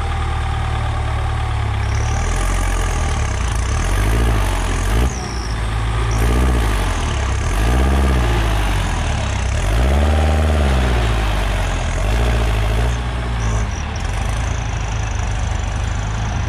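Diesel engines of two Kubota tractors running hard under load as one tows the other, bogged down, out of mud. The engine sound swells and eases several times between about four and thirteen seconds in.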